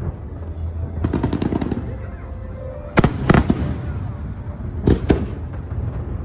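Fireworks bursting overhead: a quick run of crackling about a second in, then two loud booms close together about three seconds in and two more near the end.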